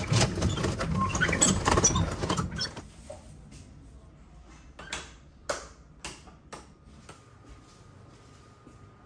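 Rustling and handling noise for about three seconds, then a few separate clicks or knocks about half a second apart, with a faint thin steady tone near the end.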